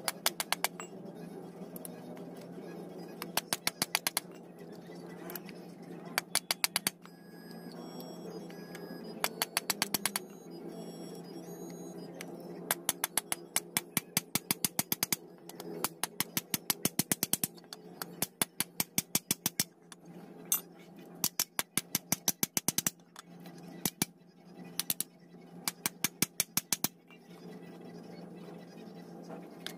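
Rapid runs of metal-on-metal hammer strikes, several a second, in repeated clusters, as rivets are set to fasten new brake lining onto a truck drum-brake shoe.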